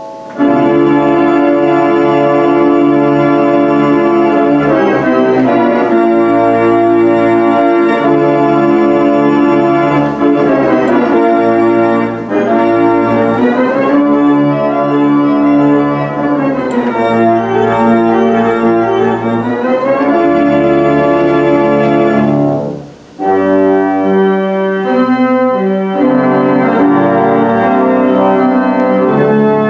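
The 1,972-pipe Aeolian pipe organ playing loud, sustained full chords over low held bass notes. The chords come in suddenly just after the start, and there is a brief break about 23 seconds in before the playing resumes.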